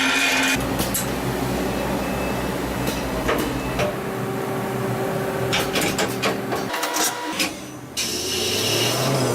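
High-speed CNC lathe running: steady machine hum and whir with short clicks and knocks, changing abruptly a few times.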